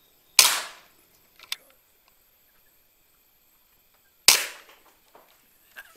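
Two shots from a PCP air rifle, about four seconds apart, each a sharp crack that dies away quickly. A fainter double click comes about a second after the first shot.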